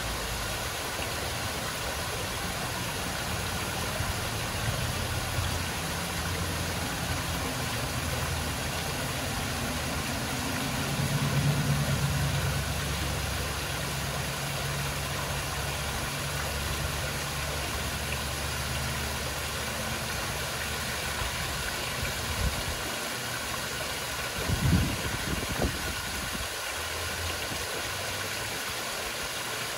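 Rock waterfall splashing steadily into a koi pond, over a low hum that swells for a couple of seconds near the middle. A few short low knocks come near the end.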